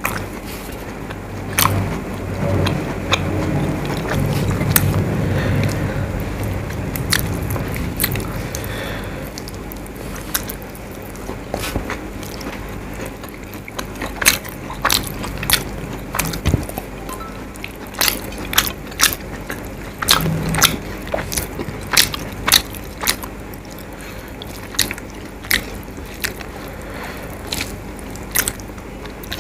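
Close-miked eating by hand: chewing with many sharp mouth clicks and smacks over a mouthful of fish curry and rice. Fingers mix rice on a plate near the end.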